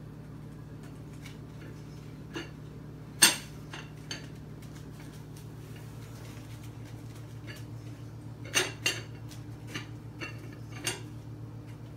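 A lid clinking and clattering against a dog's food bowl as a cat paws at it, trying to pry it off: about eight separate knocks, the loudest about three seconds in and two close together later on, over a steady low hum.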